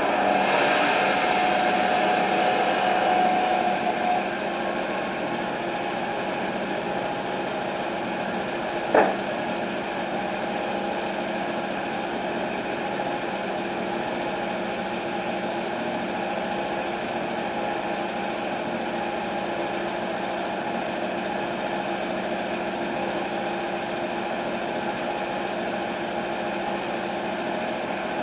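TimberKing 1220 bandsaw mill's engine running steadily, with a louder whine for the first few seconds that drops away about four seconds in. A single sharp clatter about nine seconds in as a cut slab is thrown onto the pile.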